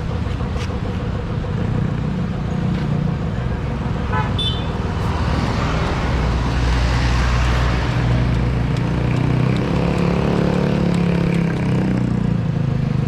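Motorcycle engine running steadily while riding, with wind rushing over the camera microphone. A brief high chirp comes about four seconds in.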